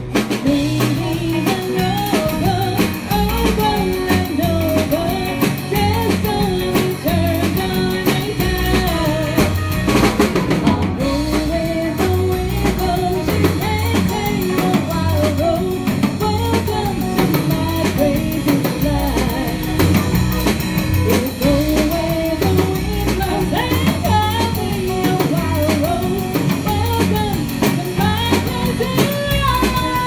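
Live country band playing: a woman singing the lead melody into a microphone over a drum kit keeping a steady beat and electric guitar.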